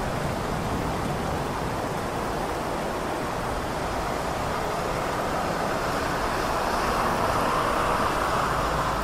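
Heavy rain over city traffic on wet streets: a steady hiss of rain and tyres that swells a little a few seconds before the end.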